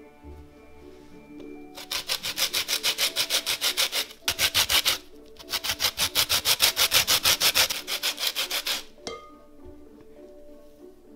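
Lemon rubbed back and forth on a fine stainless-steel rasp grater, zesting the peel: rapid scraping strokes about six a second, in three runs with short breaks, stopping about nine seconds in. Soft background music plays underneath.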